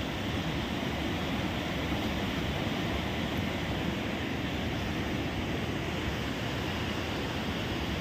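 Steady rushing noise of the Teesta River, running high and fast after monsoon rain.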